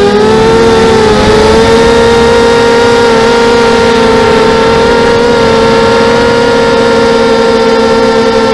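Diatone FPV250 quadcopter's RCX 1804 2400kv brushless motors spinning 5x3 props in flight: a loud, steady buzzing whine that wavers in pitch about a second in and then holds steady.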